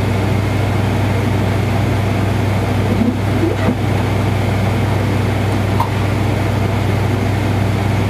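A steady low mechanical hum, with a few small clicks about three to four seconds in and one near six seconds.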